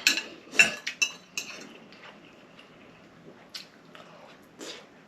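Cutlery clinking and scraping against a dish while eating: a quick run of short clicks with a light ring in the first second and a half, then two more single clicks later on.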